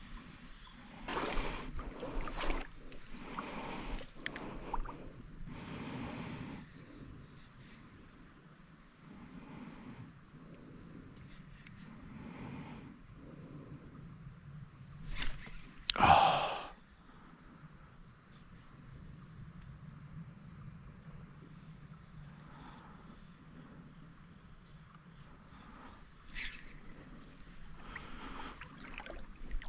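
Insects, crickets, chirring steadily at a high pitch over a creek, with soft intermittent sloshing of water and one louder swish about sixteen seconds in.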